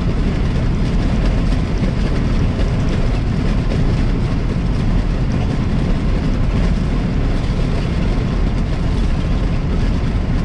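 Peterbilt 389 semi truck cruising at highway speed, heard from inside the cab: a steady drone of engine and road noise, heaviest in the low rumble.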